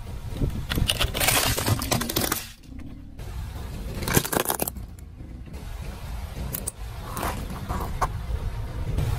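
A car tyre slowly rolling over and crushing objects: a plastic toy cracking, then wooden coloured pencils snapping with one sharp snap about four seconds in, then more cracks and clicks, over the low rumble of the car.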